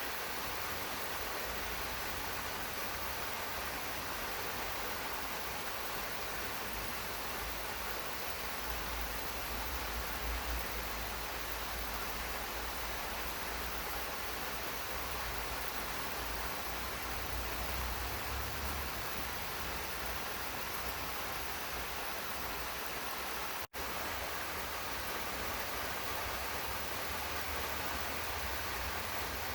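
Steady rain falling in a garden, a constant even hiss with a low rumble beneath. The sound cuts out for an instant about three-quarters of the way through.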